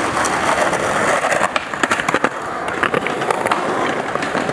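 Skateboard wheels rolling over concrete pavement: a steady rough rumble with many sharp clicks scattered through it.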